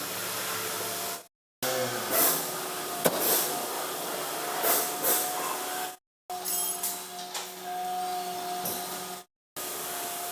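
A small electric motor running steadily with a hum and hiss, mixed with scattered knocks and clatter, broken by brief silent cuts.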